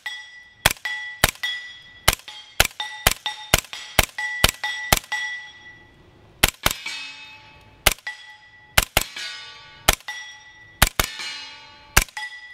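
A suppressed Freedom Ordnance FX-9 9mm carbine firing 147-grain subsonic rounds semi-automatically. The bolt's clicking is louder than the gunshot itself, and each shot leaves a short metallic ring. About ten shots come at an even pace, then after a pause about a dozen more come in quicker pairs and groups.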